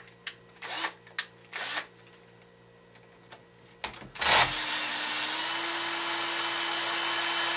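A few short handling clicks, then about four seconds in a cordless electric screwdriver starts and runs steadily, backing out a long screw. Its motor whine holds one pitch and steps up slightly soon after starting.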